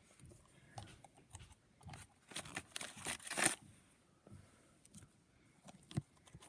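Irregular crackling and crunching as Oreo cookies are handled and pushed into a mouth. It is densest and loudest from about two to three and a half seconds in, with a single sharper click near the end.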